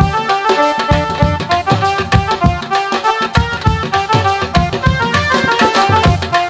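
Live folk-style band music: an electronic keyboard plays a fast, busy melody over quick, steady dhol and drum beats.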